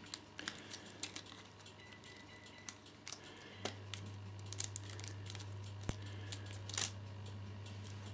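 Handling noise from a plastic plug-in power adapter and its cable being turned over and untangled: scattered small clicks and taps. A low steady hum runs underneath and gets louder about three and a half seconds in.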